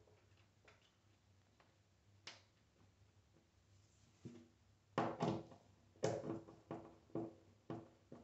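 Hand screwdriver turning a screw through a clear plastic mirror clip into the wall, worked by hand so the clip is not over-tightened against the glass: a series of short clicks and knocks, about two a second, in the last three seconds, after a single click about two seconds in.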